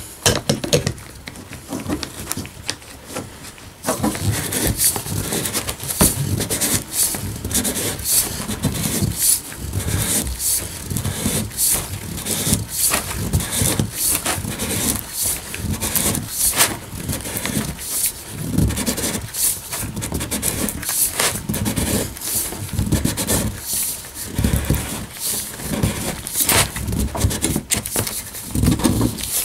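Oil filter cutter's wheel scraping around the steel can of a Purolator L10111 oil filter as the filter is turned by hand against it, in uneven repeated rasps. It gets louder about four seconds in, after some lighter handling clicks.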